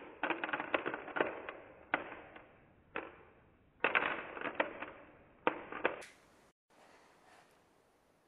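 Small steel nails clicking and rattling against each other and the plastic compartment box as fingers sift through them and pick some out, in irregular bursts; it stops about six seconds in.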